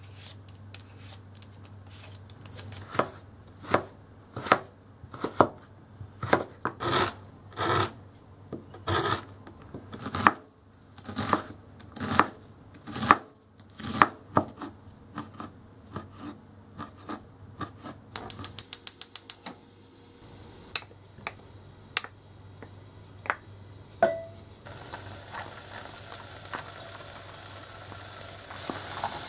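Kitchen knife chopping on a wooden cutting board in single strokes, then a quick run of about ten strokes a second as the food is finely minced. Near the end, butter sizzling in a pot as diced bacon and onion begin to fry.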